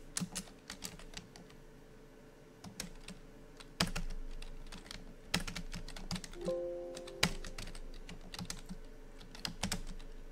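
Typing on a computer keyboard: irregular key clicks, with a short pitched electronic tone of a few notes about six and a half seconds in.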